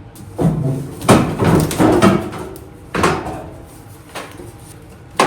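Hard clanks and rattles of metal parts being handled on the welder, with a busy run of knocks in the first couple of seconds and a single sharp clank about three seconds in.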